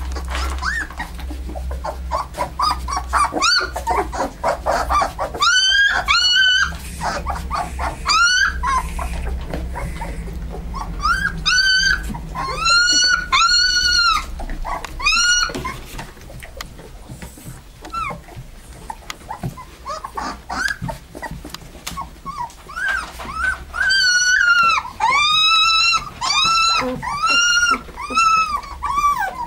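Young Alaskan Malamute puppies whining and squealing: strings of short high cries that rise and fall in pitch, coming in bursts with a dense run of them near the end, over a steady low hum.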